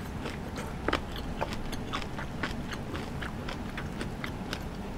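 Close-up chewing of a mouthful of cooked hot pot greens, with wet mouth clicks and smacks at about three a second.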